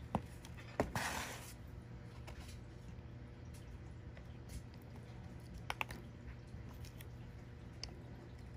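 Light handling clicks and taps from working the plastic bracket and tools. The sharpest click comes about a second in and is followed by a brief hiss, with two more clicks a little before six seconds, all over a steady low hum.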